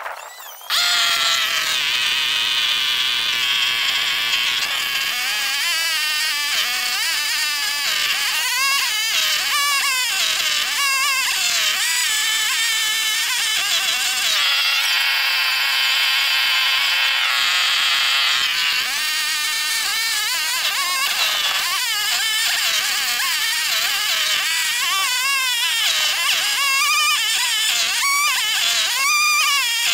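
Gasoline chainsaw cutting into a square timber beam, running at high revs with its pitch wavering up and down as the chain bites into the wood. It starts abruptly about a second in.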